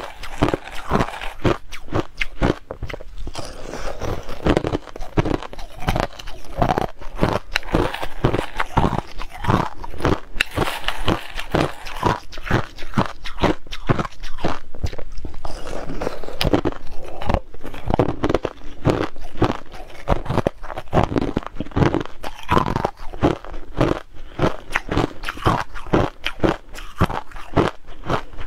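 Chunks of hard crushed ice bitten and chewed between the teeth: rapid, continuous crisp crunching.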